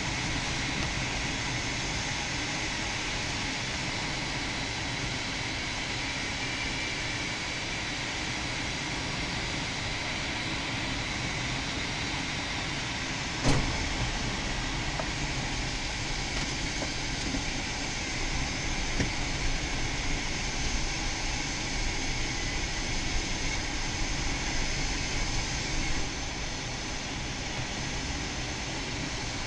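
Steady rush of air past the cockpit of a PW-6U glider on its landing approach, with no engine. There is one sharp click about halfway through, and a few seconds later the noise turns louder and uneven for about eight seconds before settling again.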